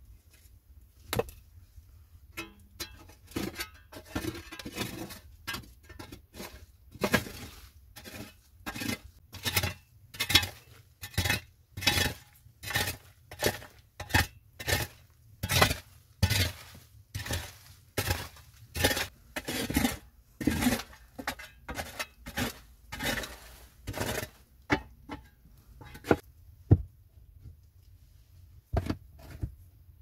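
A metal shovel blade chopping and scraping into a packed earth wall in a steady series of strokes, about one and a half to two a second, stopping near the end.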